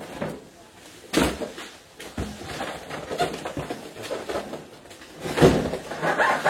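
Objects being handled and knocked about, with clattering between the knocks. There is a sharp thump about a second in and a louder, longer one about five and a half seconds in.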